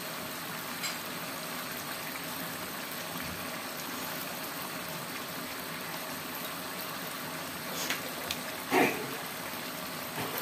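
Chili sauce simmering in a wok, a steady bubbling hiss. A short louder sound comes near the end.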